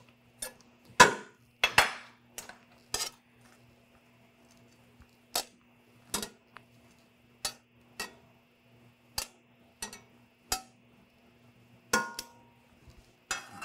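Metal tongs clinking against a stainless steel sauté pan and a metal platter as seafood is lifted into the pan: irregular single clinks, roughly one a second, the loudest about a second in.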